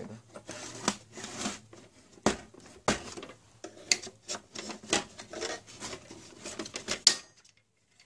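Irregular plastic clicks, snaps and knocks as the front cover of an HP LaserJet P1102 printer is unlatched and pulled off by hand and with a screwdriver. The clatter stops suddenly shortly before the end.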